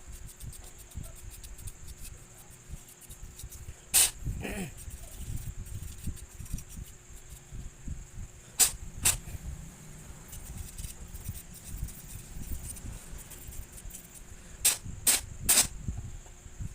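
Hands cleaning and handling the parts of an opened laptop: low rubbing and shuffling, with sharp clicks about 4 s in, twice around 9 s and three in quick succession near the end.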